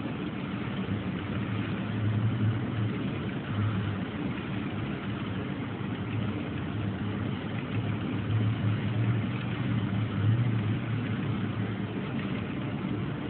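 Large model freight train running past: a steady mechanical rumble with a low hum that swells now and then.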